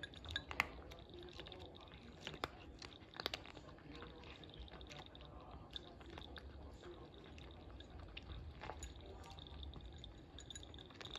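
Ragamuffin cat chewing dry kibble, with irregular crisp crunches ("karikari") and a few sharper bites standing out.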